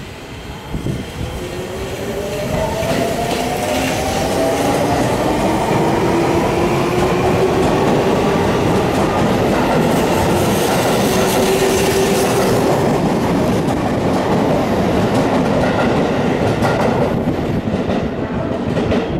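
Seibu 20000 series electric train pulling away from a station: its traction motors whine in several tones that rise slowly in pitch as it gathers speed, over the rumble and clatter of wheels on the rails. The sound eases off near the end.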